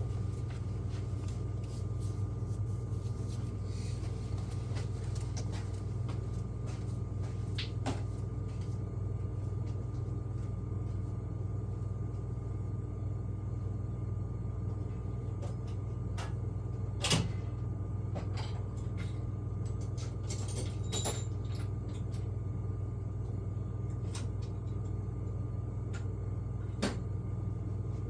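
A steady low hum with scattered clicks, clanks and knocks of tools and parts being handled; the loudest knock comes about two-thirds of the way through.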